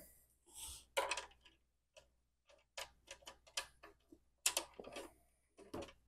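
Clicks and taps of the smart bird feeder's perch being handled and pushed down onto the feeder body to lock it in place, a handful of short sharp clicks spread over several seconds.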